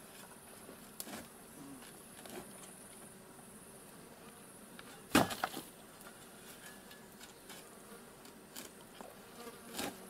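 A man splashing through pond water as he wades in and starts swimming, with a loud splash about five seconds in and smaller splashes around it. A steady buzz of insects runs underneath.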